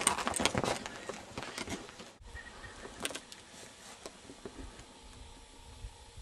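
Footsteps crunching over rough lava rock and brush. About two seconds in they cut off, leaving faint wind rumble on the microphone and a few small knocks.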